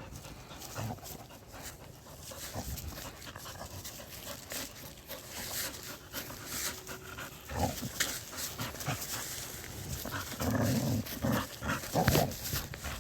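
Airedale terrier puppy panting and making short vocal noises, with scattered clicks. The vocal noises come around halfway through and grow louder and more frequent in the last few seconds.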